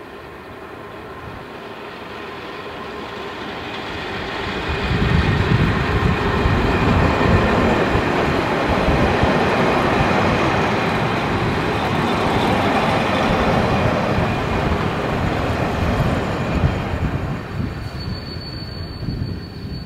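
First-generation BR diesel multiple unit running past at close range: the rumble of its engines and wheels on the rails builds as it approaches, holds steady and loud as the carriages go by, then fades as it draws away near the end.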